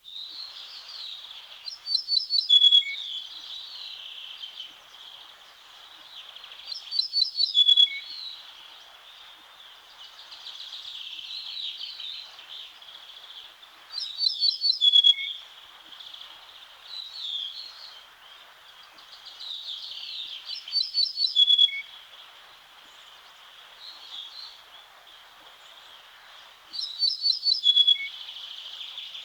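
Ortolan bunting singing: five songs about six seconds apart, each a quick run of repeated notes ending on a lower note. A steady chorus of other birds goes on behind.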